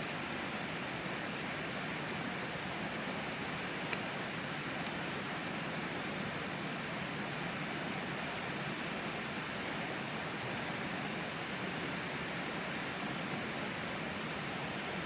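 Tama River water flowing right beside, a steady even rushing hiss, with a steady high thin tone over it. A single click sounds about four seconds in.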